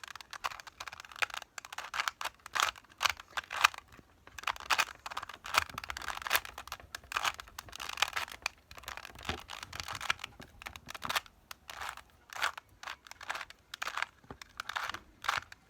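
Rubik's cube being twisted by hand: an irregular run of plastic clicks and rattles as the layers are turned one after another.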